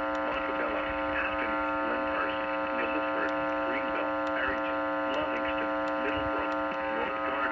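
Steady electrical buzz with many overtones coming through a broadcast receiver with a bad signal, with a faint warbling, garbled pattern running under it.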